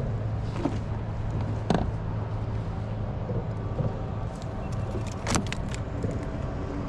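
Steady low mechanical rumble with several sharp knocks and clicks, the loudest about a second and a half in and about five seconds in.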